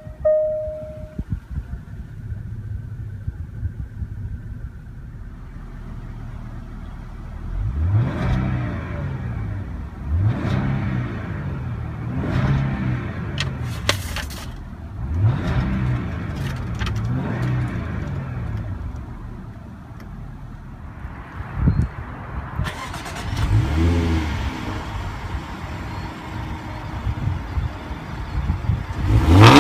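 Jaguar 3.0-litre supercharged V6 idling, then free-revved about five times in Park, each rev rising and falling back to idle. After that it is heard from behind at the exhaust tips, with a couple more revs.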